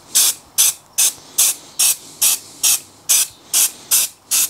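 Aerosol can of satin black spray paint sprayed in short, even bursts, about two or three a second, each a brief hiss.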